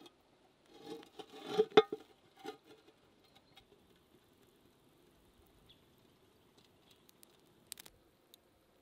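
Metal clinks and scrapes of an upturned frying pan being set as a lid over a pizza pan on campfire coals, a quick run of knocks with the loudest about two seconds in. After that only a faint background, with a few small clicks near the end.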